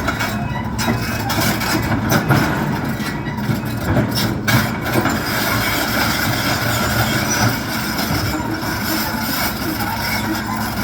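2013 Case CX130C hydraulic excavator running, its diesel engine going steadily, with occasional metallic clanks.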